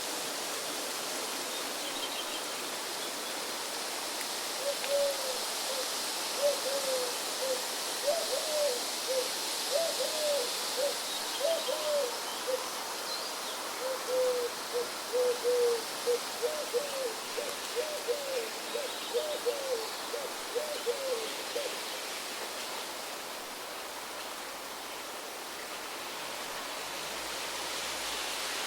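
Steady wind noise, with a bird giving a long run of short, low, arched notes at about two a second from about five seconds in until just past twenty seconds. A few faint high chirps come now and then.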